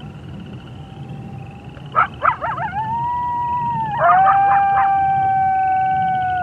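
Canines howling: long, held howls with short yelps breaking in about two seconds in and again about four seconds in, then two howls overlapping that drop in pitch near the end.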